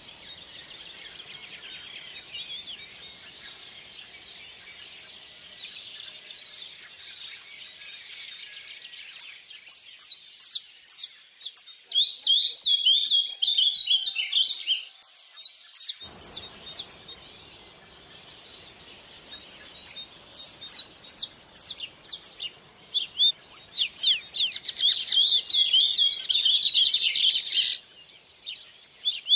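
Small songbirds chirping in quick runs of sharp, high notes over the steady rush of stream water. The birds start about a third of the way in, come in spells, and are densest and loudest near the end; the water sound drops away for a few seconds midway.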